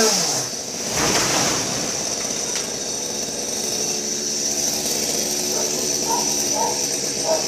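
Chainsaw engine coming down from high revs about half a second in, then idling steadily up in the tree.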